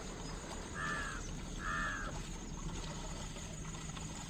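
Two short bird calls about a second apart, harsh and caw-like.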